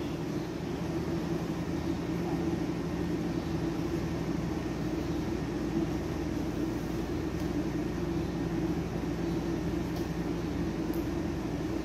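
Steady low machine-like hum with hiss over it, unchanging throughout, with a few faint ticks.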